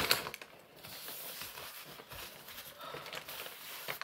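Paper fast-food bag and wrappers rustling and crinkling as they are handled and crumpled, after a sharp tap at the start.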